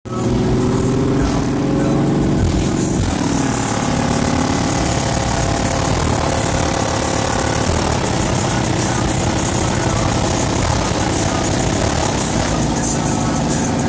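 Pickup truck engine idling through its exhaust, with a brief dip and rise in pitch about two to three seconds in.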